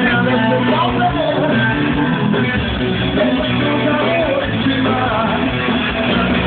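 Live rock music with electric guitars and a loud bass, recorded from the crowd through a phone's microphone with a muffled, narrow sound.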